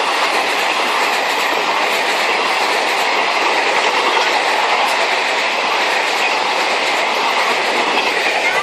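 Indian Railways train running on the track: a steady, loud noise of wheels and carriages on the rails.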